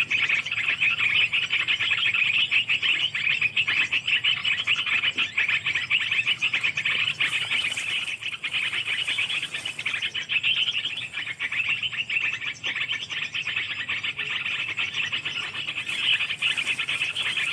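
Steady, dense chorus of calling animals: a rapid, high pulsing buzz with no pauses.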